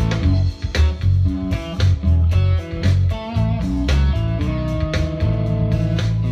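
Electric guitar playing a slow instrumental melody of picked single notes and chords, with a deep low end beneath.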